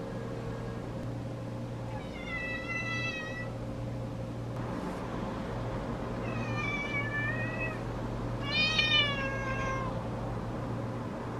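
A pet tabby cat meowing three times, each a drawn-out call of a second or more with a slight rise and fall in pitch; the cat keeps 'talking' to its owner. A steady low hum runs underneath.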